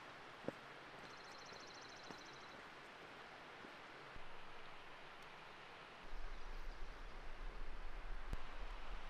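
Quiet mountain-lake ambience, a steady faint hush, with a short, fast, high bird trill about a second in. From about six seconds on, a gusty low rumble of wind on the microphone takes over and is much louder.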